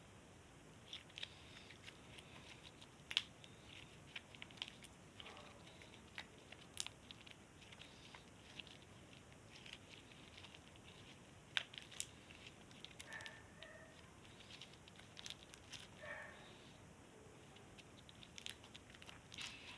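Crunchy slime with foam cubes mixed in being squeezed and worked in the hands, giving faint, irregular crackling with a few sharper pops.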